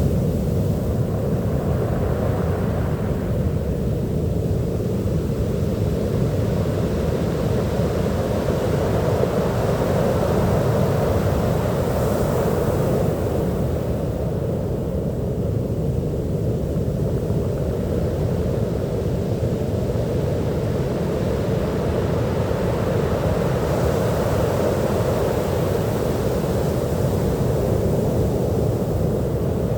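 Sea surf washing onto a beach: a steady low rush of water, with waves swelling up about every ten seconds.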